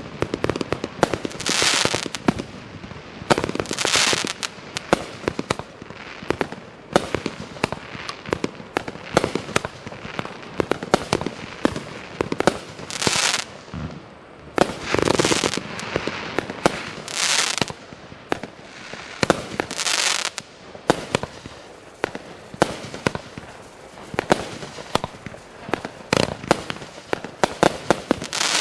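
Sky Painter Big Foot 500-gram, 20-shot cake firework going off: a loud hissing rush every few seconds as shots fire, with many sharp crackling pops in between.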